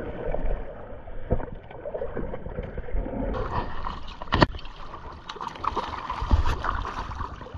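A hooked American shad splashing at the surface as it is played to hand, with river water sloshing and lapping close against a camera held at the waterline. Several sharp splashes, the loudest about four and a half seconds in.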